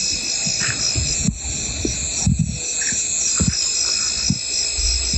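Emu giving short, irregular low drumming thuds over steady high trilling of night insects; a low steady drone comes in near the end.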